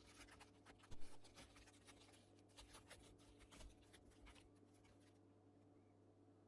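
Faint scratching, rustling and light clicks of a plastic storage organiser's packaging being handled and opened, with a single soft knock about a second in, over a low steady hum.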